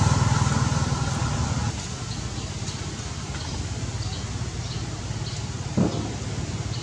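A motor vehicle engine running, loud at first and dropping away after about a second and a half. It leaves a steady outdoor hiss with faint high chirps and one short sound near the end.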